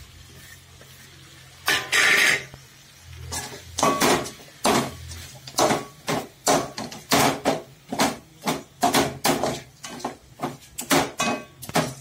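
Metal ladle scraping and knocking against an aluminium pan while stirring quail pieces in thick masala, in repeated strokes about twice a second after one longer scrape about two seconds in.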